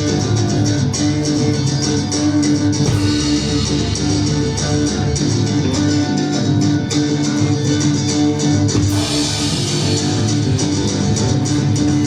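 Guitar-led music with bass, playing steadily.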